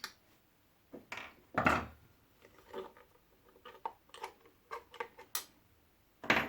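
Scattered clicks and light knocks of metal and plastic lamp parts being handled during disassembly, with one louder knock about two seconds in and another near the end.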